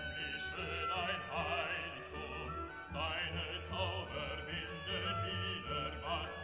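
Background music: a wavering melody with vibrato over held tones and a steady low bass.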